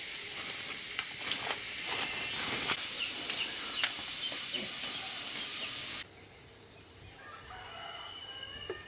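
Chickens calling over a steady hiss scattered with sharp clicks. About six seconds in, the hiss stops abruptly, leaving a quieter stretch with a few thin, high calls.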